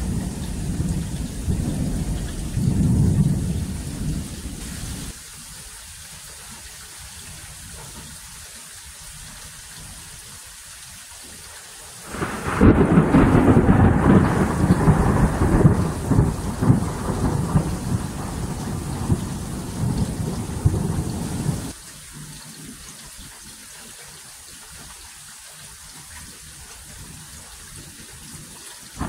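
Thunder rumbling over steady rain. About twelve seconds in a loud peal of thunder breaks in and rumbles for about ten seconds before cutting off suddenly.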